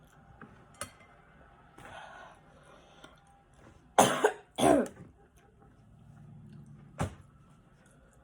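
A person coughing twice in quick succession, with a shorter sharp sound about two seconds later. The coughing is set off by the heat of the 2x spicy noodles she is eating.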